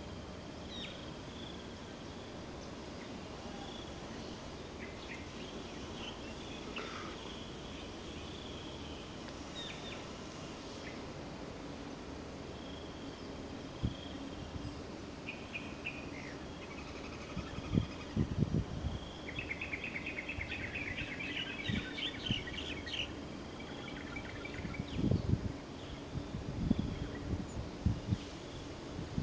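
Outdoor evening ambience: a steady background hiss with birds chirping off and on, rising to a burst of quick twittering about two-thirds of the way through. Several short low bumps in the second half.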